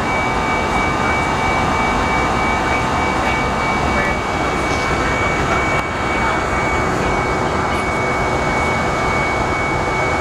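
Steady cabin noise of an Airbus A319 in flight, heard at a window seat beside the wing: jet engines and airflow rushing, with a thin steady high whine over it.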